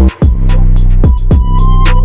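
Background electronic music with a heavy, deep bass and a hard drum beat.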